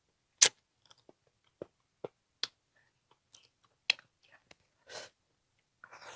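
Close-up eating sounds: a person chewing, with scattered sharp wet mouth clicks and smacks at irregular intervals, and a softer chewing rustle about five seconds in.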